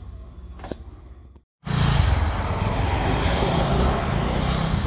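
Steady motor-vehicle noise that starts abruptly about a second and a half in, after a brief dropout. Before it there is a quieter low hum with a single click.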